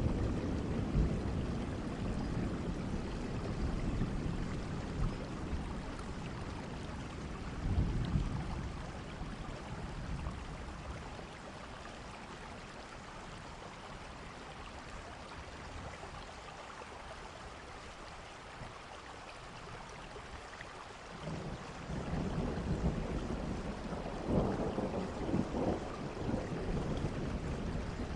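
Steady rain with low rolls of thunder. The rumbling fades after the start and dies down for a while mid-way, then a new roll of thunder builds about two-thirds of the way through.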